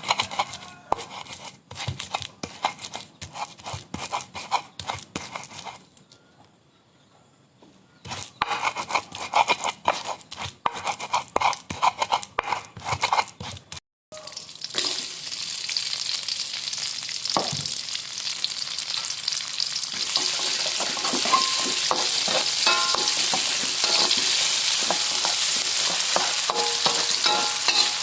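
Quick irregular knocks and scrapes of kitchen preparation, then, after a brief cut about halfway, food frying in hot oil in a pan with a steady sizzle and occasional stirring clinks. The sizzle grows louder about two-thirds of the way in.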